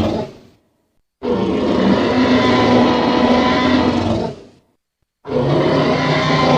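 Tyrannosaurus rex roar sound effects played back to back: one roar fades out just after the start, a second roar lasts about three seconds, and a third begins near the end, with dead silence between them.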